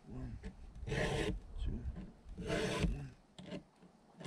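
Hand file rasping across the cutters of a STIHL MS261 C-M chainsaw chain, sharpening it in two strokes about a second and a half apart.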